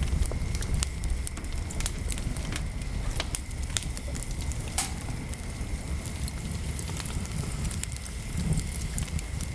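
Wood fire crackling: irregular sharp pops and snaps over a low steady rumble of burning.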